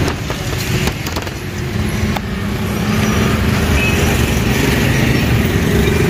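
Street traffic noise: a steady low rumble of a vehicle engine running close by, growing a little louder about halfway through, with a few light slaps in the first couple of seconds as rumali roti dough is handled.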